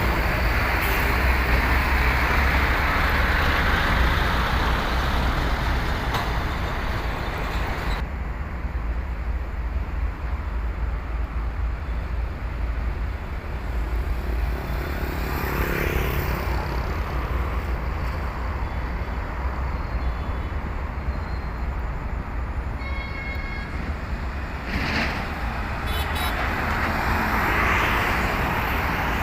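Heavy trucks climbing an incline amid road traffic, their diesel engines rumbling steadily. A short horn toot sounds about three-quarters of the way through.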